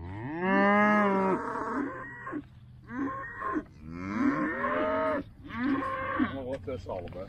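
Young beef calf mooing over and over, a run of long, drawn-out calls one after another. It is the same distinctive moo its mother always makes.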